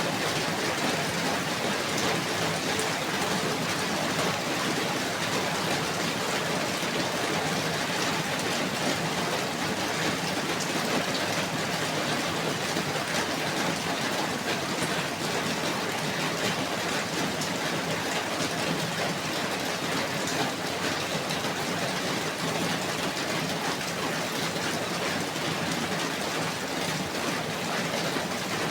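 Steady rainfall: an even hiss of falling rain with fine scattered drop ticks, unchanging throughout.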